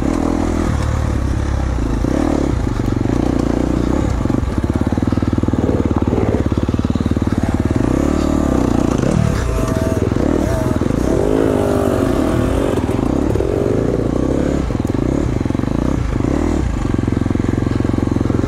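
KTM 250 XC-F four-stroke dirt bike engine running under way, its pitch rising and falling with the throttle.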